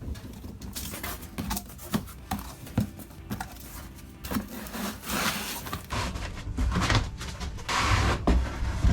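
Gear and boxes being handled and shifted about: scattered knocks and taps, with a couple of longer scuffing, rubbing scrapes past the middle.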